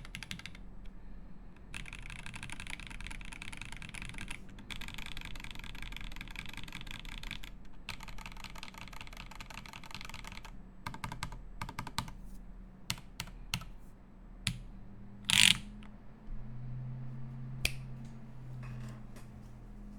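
Typing on a TGR Jane V2 CE mechanical keyboard with lubed SP-Star Meteor White switches, a carbon-fibre plate and GMK keycaps. It starts as fast, continuous typing for about ten seconds, then thins to scattered single keystrokes, with one much louder hit about fifteen seconds in.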